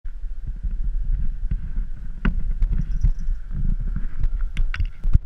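Handling noise from a GoPro in its plastic waterproof housing being held and moved about: muffled rubbing and rumble with a string of sharp knocks and clicks, the loudest near the end.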